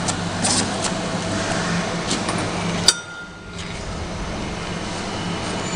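Top-and-side labeling machine for stemmed wine glasses running: a steady mechanical hum with scattered light clicks and taps. A sharp click comes about three seconds in, and the level dips briefly after it.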